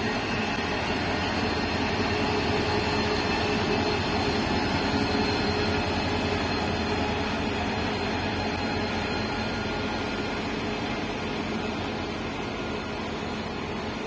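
Rail Polska M62M diesel locomotive running light past at low speed, its diesel engine running steadily, then fading slowly as it moves away.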